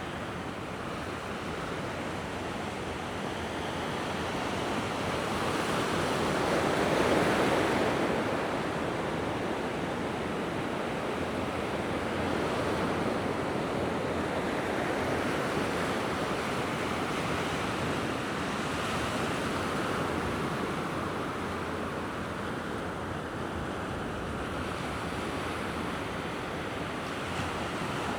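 Mediterranean surf: small waves breaking and washing ashore in a steady hiss, with one wave swelling loudest about seven seconds in and gentler swells after.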